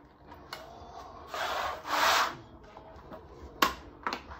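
Two rough scraping strokes of a utility knife drawn along the edge of an acrylic template, scoring a luxury vinyl floor plank, each about half a second long and the second one louder. Two sharp clicks follow near the end.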